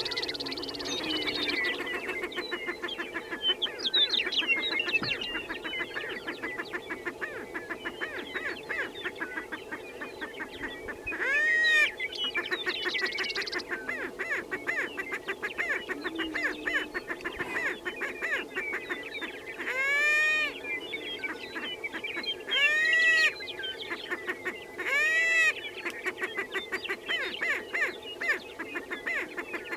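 A lek of greater prairie chickens calling: a steady low booming chorus underneath constant rapid cackling. Four louder rising-and-falling whooping calls stand out, one about a third of the way in and three in the last third.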